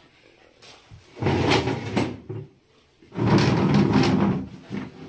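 Two scraping, rustling handling sounds, about a second each, as things are shifted about at a sewing-machine table, with a fainter one near the end.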